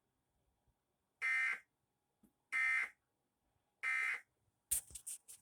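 Emergency Alert System end-of-message signal: three short bursts of SAME digital data tones, about 1.3 seconds apart. A few sharp clicks follow near the end.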